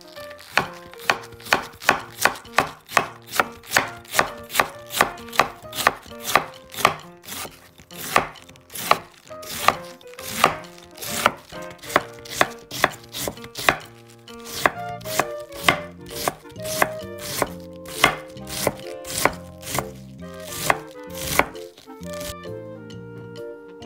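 Chef's knife shredding cabbage on a wooden cutting board: crisp, evenly spaced cuts about three a second, each ending in a knock on the board. There are short pauses about 8 and 14 seconds in, and the cutting stops about two seconds before the end.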